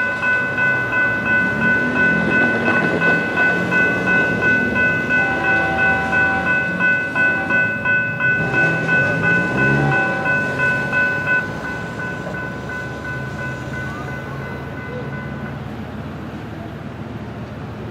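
Grade-crossing warning bell ringing about twice a second, stopping about eleven seconds in, over the low rumble of a freight train passing the crossing.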